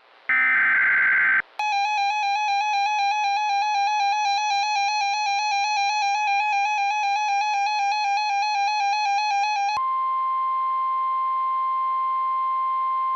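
Emergency alert tones: a burst of digital header data lasting about a second, then about eight seconds of a harsh, evenly pulsing alert tone, then a steady single-pitched tone, the 1050 Hz warning tone of NOAA Weather Radio.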